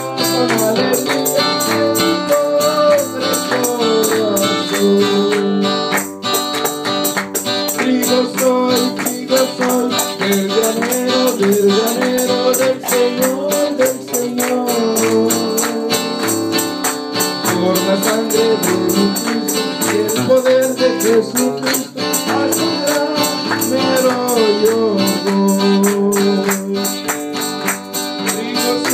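Live worship song: a man singing into a microphone over a strummed acoustic guitar, with hand-clapping keeping a steady beat.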